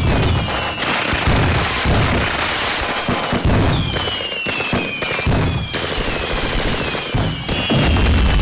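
Fireworks going off in quick succession: rapid crackling bangs over deep booms, with several whistles that fall in pitch as they fade.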